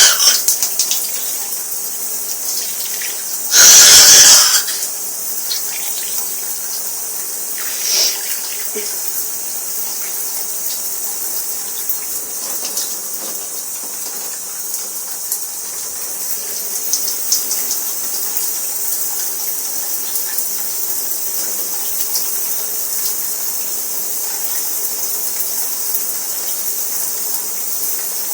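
Shower water running steadily, with one loud sneeze lasting under a second about four seconds in and a fainter short sound at about eight seconds.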